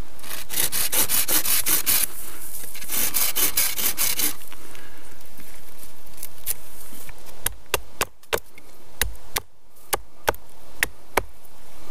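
Hand saw cutting through a green birch sapling in two quick runs of rapid strokes, then a string of about ten separate sharp knocks on the wood.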